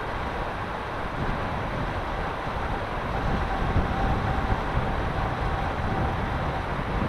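Steady wind noise and rumble on an outdoor microphone, with a faint thin whine that comes in around the middle and fades near the end.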